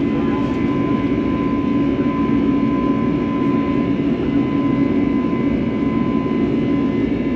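Steady cabin noise of an Airbus A321 in flight: jet engine and airflow drone with a steady low hum and a fainter higher tone, unchanging throughout.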